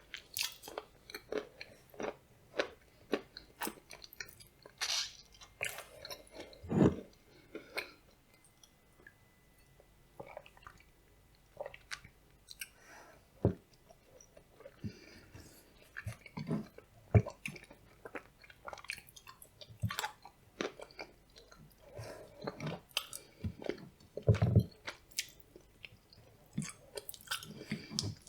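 Close-up chewing of blueberry soufflé with nuts: irregular crisp crunches and bites, with a quieter pause about a third of the way through.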